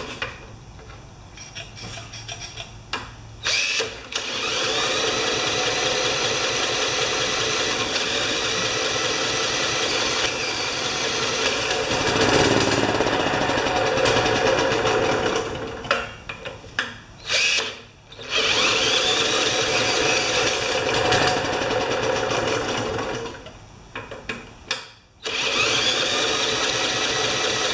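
Cordless drill spinning over the Honda HRA214 mower's engine in long runs, each starting with a rising whine, with short stops about two-thirds of the way in and near the end. The engine does not take its fuel, which the owner puts down to a gummed-up carburetor.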